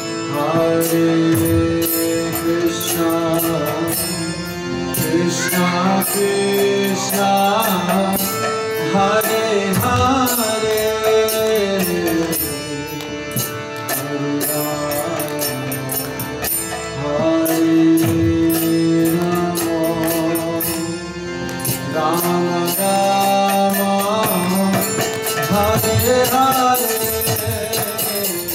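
Kirtan: a man singing a devotional melody over the sustained chords of a harmonium, with a fast steady ticking of percussion throughout.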